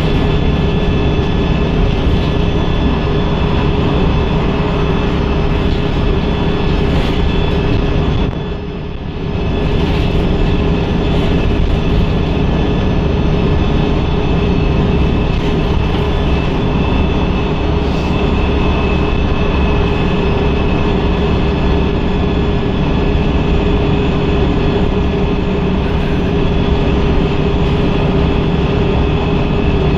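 Wright StreetLite DF single-deck bus's diesel engine and drivetrain running hard at speed, heard from the rear seats as a steady rumble with a high whine and road noise. The sound eases briefly about eight seconds in, then picks up again.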